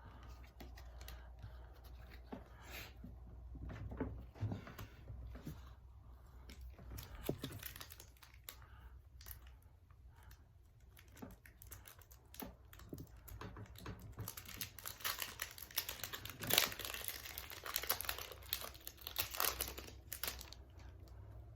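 Light clicks and rustles of handling, then a Yu-Gi-Oh! booster pack's foil wrapper crinkling and tearing open, densest for several seconds near the end.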